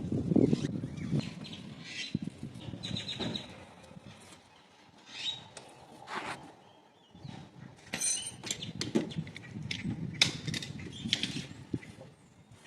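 Gusty wind rumbling across the microphone, with scattered clicks and knocks of hand work on the car and a few short bird chirps.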